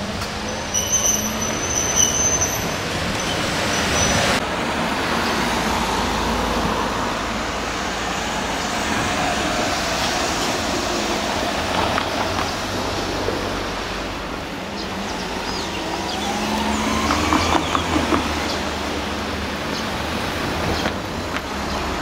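Steady road-traffic noise from cars on the street by the level crossing, with one vehicle accelerating in a rising pitch a little past halfway. At the very start, a Shimabara Railway train's wheels squeal briefly on the rails and fade out within the first few seconds.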